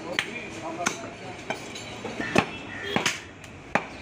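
Butcher's cleaver chopping beef on a wooden chopping block: about six sharp chops, roughly one every two-thirds of a second.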